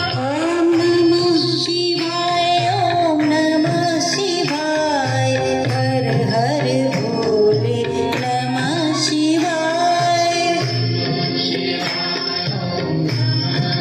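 A woman sings a Shiva devotional bhajan into a microphone through a sound system, over instrumental accompaniment with a steady beat.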